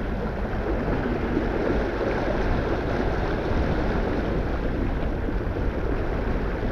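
Steady rush and splash of water along the hull of a sailing yacht under way, with wind noise over it.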